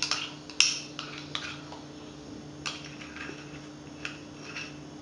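A metal spoon clinking and scraping against a small metal cup as thick cocoa paste is scraped out into a bowl of batter: one sharp clink about half a second in, then a few fainter taps and scrapes.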